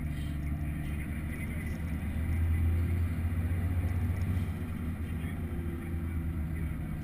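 JCB Fastrac 1135 tractor's six-cylinder diesel engine running steadily as the tractor drives along, a low drone that grows louder from about two to four and a half seconds in.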